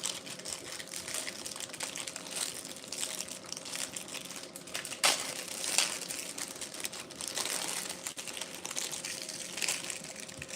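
Close-miked crinkling of a burrito's wrapper being handled and opened, with a sharp snap about five seconds in.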